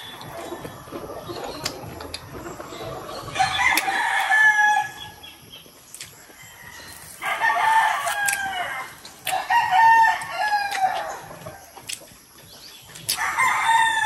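Rooster crowing four times, each crow a long call of about two seconds that drops in pitch at the end.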